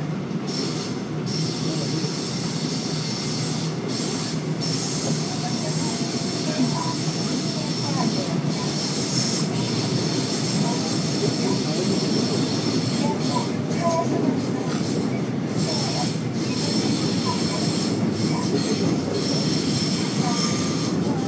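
Subway train running, heard from inside the carriage: a steady rumble of wheels on the track with a high-pitched wheel squeal that comes and goes.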